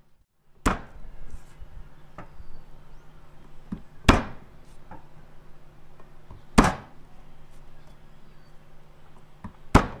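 Garlic cloves being smashed with the flat of a knife blade on a bamboo cutting board: four sharp knocks a few seconds apart, with lighter taps and clicks of handling between them.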